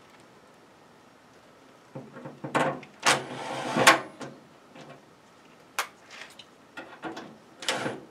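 Cordless screw gun driving a screw into a tankless water heater's sheet-metal front panel. One loud noisy run of about two seconds starts about two seconds in, and short clicks and metal knocks follow near the end as the panel is handled.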